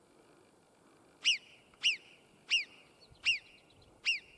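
Alpine marmot giving its alarm call: a run of five sharp, downward-sweeping whistles about two thirds of a second apart, starting about a second in. It is the marmot's alert at a human approaching.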